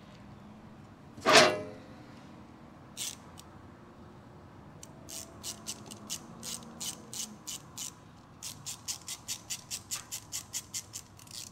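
A single sharp knock with a short ring about a second in, then a run of sharp mechanical clicks, about three to four a second, from a ratchet-like mechanism.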